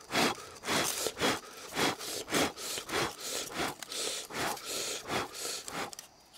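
A knife sawing back and forth through a grilled king oyster mushroom: about a dozen short, even rasping strokes, roughly two a second.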